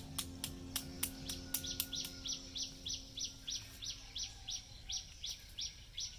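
A bird calling in a rapid, even series of short, high chirps, about four a second; the first few come as sharp clicks.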